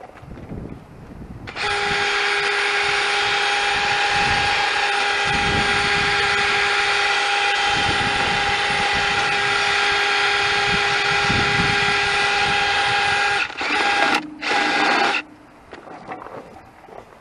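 A power tool running at a steady speed for about twelve seconds. It then briefly drops in pitch and wavers before it stops.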